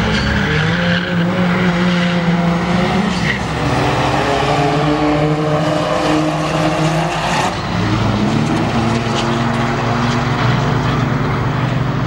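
Two road cars drag racing from a standing start, engines accelerating hard at full throttle: the pitch climbs, drops back at each gear change, then climbs again.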